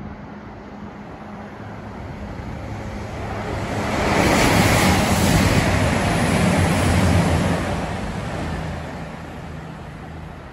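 Passenger train running through the station at speed. Its rushing noise, with a low hum underneath, swells over a few seconds, is loudest about halfway through, then fades as the train draws away.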